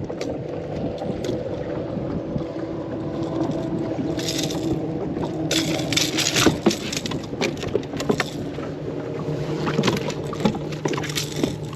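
Bass boat's electric trolling motor humming steadily, with scattered knocks and clatter of handling in the boat.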